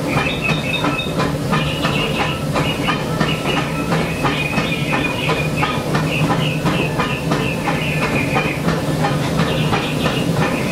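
Steam locomotive heard from its cab while running: wheels clattering over the rail joints in quick repeated clicks, with steam hissing over a steady low rumble.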